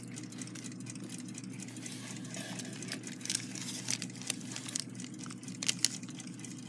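Old paper parts packet crinkling and rustling as it is handled, with scattered small rustles and clicks, busiest in the middle, over a low steady hum.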